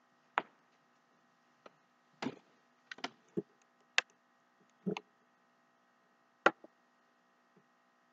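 A dozen or so sharp clicks and knocks at irregular intervals, the loudest about six and a half seconds in, over a faint steady electrical hum.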